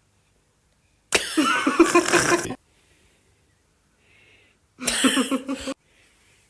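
A woman laughing in two bursts, the first about a second in and lasting about a second and a half, the second shorter near the end.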